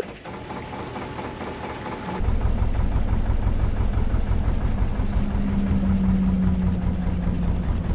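Narrowboat's inboard diesel engine running with a steady low rumble that turns suddenly louder and heavier about two seconds in. A steady hum joins it around the middle.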